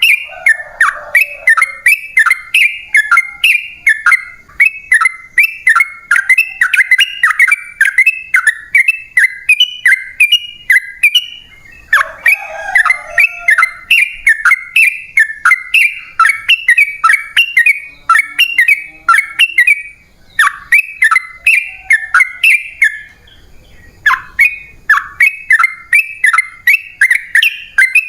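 Yellow-vented bulbul (trucukan) singing a long, fast run of short, loud chattering notes, about three a second, pausing briefly a few times before running on.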